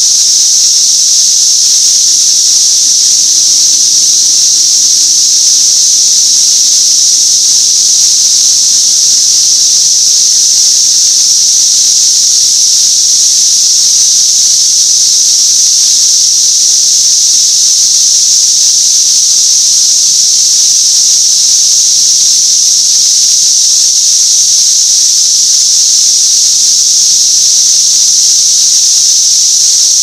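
Dense chorus of 13-year periodical cicadas in full song: a loud, unbroken high-pitched drone that holds steady throughout.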